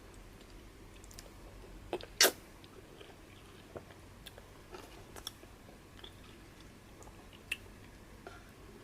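A man eating fufu with peanut soup by hand, close to the microphone: quiet chewing with scattered wet mouth clicks and smacks, and one much louder sharp click about two seconds in.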